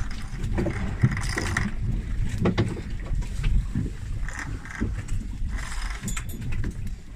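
Low, steady rumble of wind on the microphone aboard a boat, with a few sharp knocks of a knife on a plastic cutting board as bait fish is cut up.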